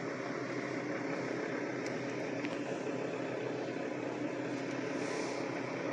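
Steady mechanical hum of room machinery, even and unchanging, with a couple of faint clicks about two seconds in.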